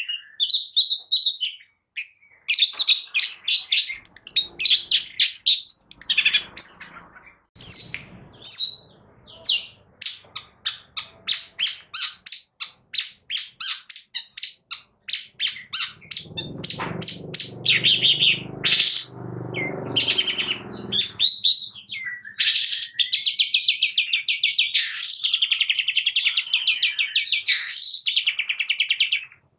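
Long-tailed shrike (cendet) singing loudly: rapid runs of varied chirps, a harsher, buzzier stretch in the middle, then a fast rattling trill that cuts off near the end.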